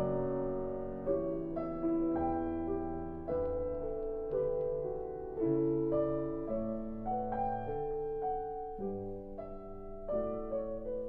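Slow background piano music, single notes and chords struck one after another and left to fade.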